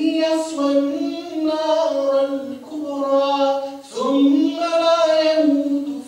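A solo voice reciting the Qur'an in melodic tajweed style, drawing out long held notes that bend and ornament, in phrases split by short breaths.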